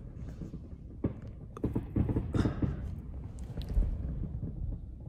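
Distant fireworks going off in irregular pops and cracks, with a few louder bangs in the middle, over a steady low rumble.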